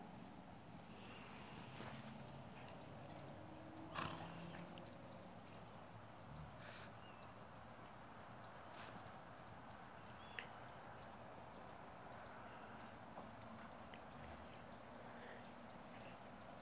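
Two Great Pyrenees dogs wrestling in play, heard as faint scuffles and a few soft clicks, over a steady high chirping that repeats a few times a second.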